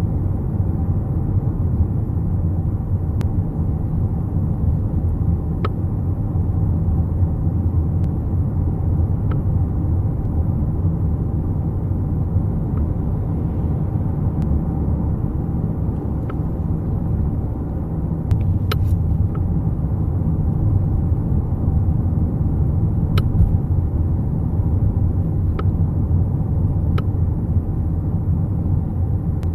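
Driver's seat of a Nissan Qashqai J11 clicking sharply at irregular intervals every few seconds, a quick pair near the middle, over the steady low rumble of the car driving, heard from inside the cabin. The clicks are a fault in the electric driver's seat.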